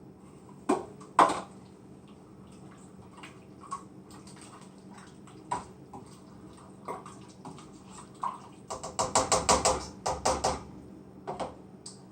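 Spices being shaken from spice containers into a pot: two sharp clicks about a second in, scattered light taps, then a fast rattling run of shakes for about two seconds near the end.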